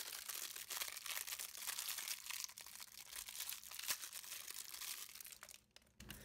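Plastic accessory packaging crinkling and crackling as it is handled and opened by hand. The crackle stops shortly before the end.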